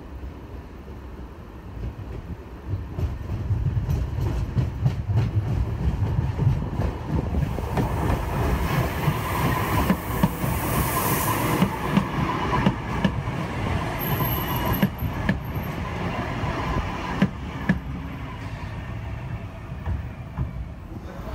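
Alstom Citadis Dualis tram-train running past on the rails. The rumble of its wheels builds as it approaches and stays loud with a hiss and scattered clicks as it goes by, then fades as it moves away.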